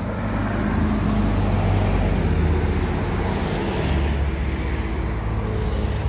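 Road traffic noise: a steady low engine rumble and hum, with a wash of sound that grows a little around the middle, like a vehicle going by.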